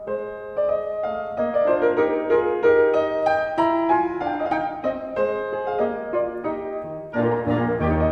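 Background music: a piano playing a melody of separate notes. About seven seconds in, lower instruments join and it grows louder.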